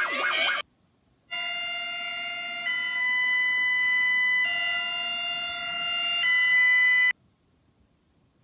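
Emergency alert broadcast tones. A rapidly warbling electronic tone cuts off within the first second. After a short gap, a steady electronic chord of several tones sounds for about six seconds, shifting pitch three times, and stops suddenly.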